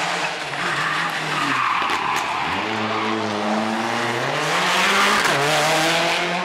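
Mitsubishi Lancer Evolution rally car's turbocharged four-cylinder engine driven hard through a turn, with skidding tyres. The engine note climbs for a couple of seconds, then drops sharply about five seconds in at an upshift.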